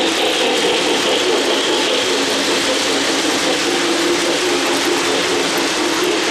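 O-gauge three-rail model train rolling past close by: a K-Line GS-4 steam locomotive and its passenger cars. The wheels and gearing make a steady mechanical rattle and whir on the track.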